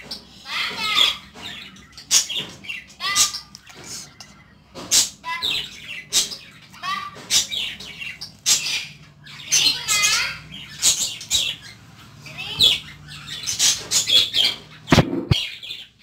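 Budgerigar chattering: a continuous run of fast, scratchy warbles, chirps and whistles broken by short pauses. Two short taps come near the end.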